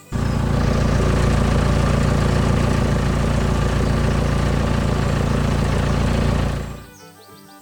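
Engine running steadily at idle, a sound effect that cuts in suddenly and fades out about a second before the end.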